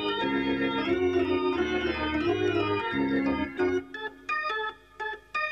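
Organ music: sustained chords over a moving bass line, thinning about two-thirds of the way through into short, separated notes with brief pauses between them.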